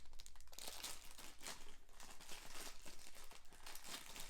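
Toy packaging crinkling and tearing in irregular rustles as the L.O.L. Surprise doll is unwrapped for its reveal.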